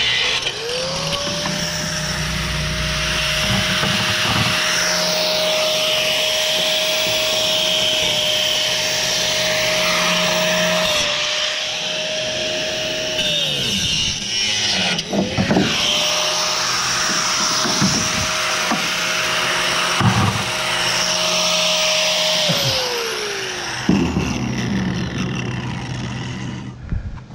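A handheld electric power tool running in two long runs. Each time its motor whine spins up to a steady pitch, holds, and then winds down as it is switched off, with rough cutting noise over it.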